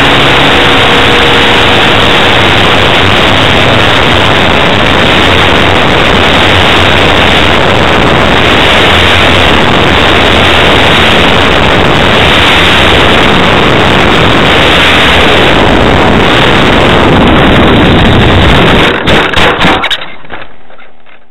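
Onboard-camera sound of a model aircraft's OS FS 120 Surpass III pumped four-stroke glow engine running in flight, heard as a loud, steady, distorted noise mixed with propeller wash and wind on the microphone. About nineteen seconds in, the sound breaks up in a few short dropouts and then fades out.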